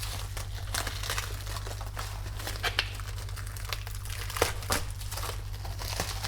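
Plastic packaging crinkling as it is handled and unwrapped, with scattered sharp crackles.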